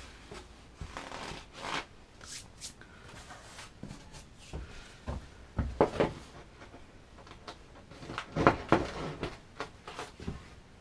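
Scattered plastic clicks, knocks and rubbing as a fin is pushed into a freshly installed Futures fin box set in a foam surfboard blank; the loudest knocks come about six seconds in and again a couple of seconds later.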